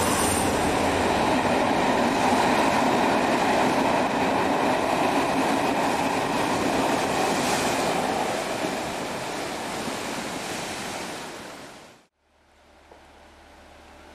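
Passenger train coaches running past along a sea wall, mixed with rough surf breaking against the wall and wind noise. The sound fades over several seconds and cuts off suddenly about twelve seconds in, leaving a much quieter low steady hum.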